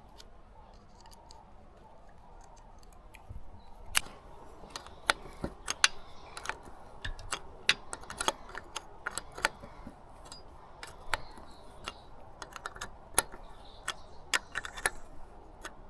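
Small metal parts and hand tools clicking and tapping irregularly as an outboard motor's carburettor is worked on and refitted. The clicks start about three or four seconds in.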